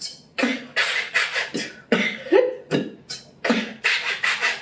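Human beatboxing by a beginner: a steady rhythm of mouth-made drum sounds, deep kick-like thumps alternating with hissy snare-like bursts, about two or three a second, with crab scratches worked in.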